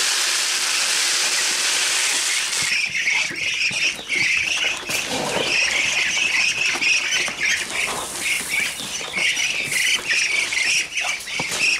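A flock of six-week-old Muscovy ducklings peeping constantly, many short high calls overlapping. For the first two or three seconds a rustling rush of dry feed being poured out onto the ground runs under the calls.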